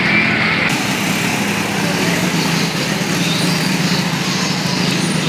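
Street traffic with motorbike engines running steadily and tyres hissing on a wet road.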